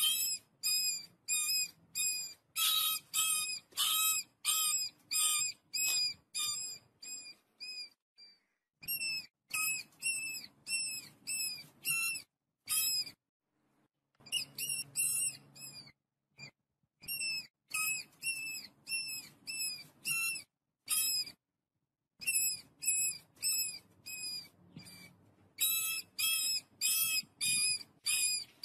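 A rapid series of short, high whistled animal calls, about two a second, each dipping slightly in pitch, in runs broken by brief silences.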